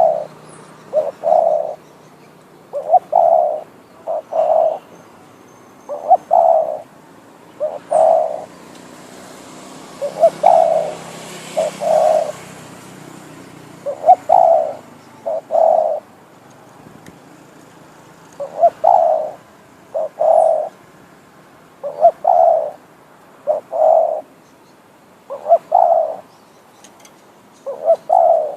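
Decoy spotted dove cooing over and over: short phrases of two or three low coos, repeated about every two seconds.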